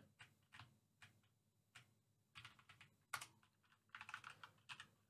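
Faint, irregular keystrokes on a computer keyboard, a few at a time, with more of them in the second half.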